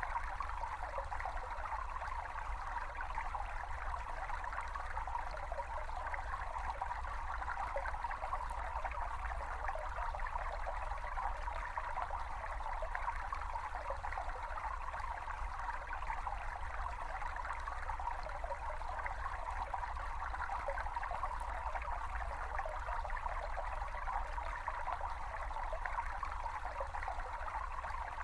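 A small stream babbling and trickling steadily, a field recording of running water.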